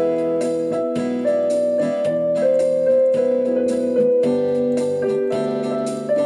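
Background music: piano or electric-piano notes and chords, with a steady, regular beat.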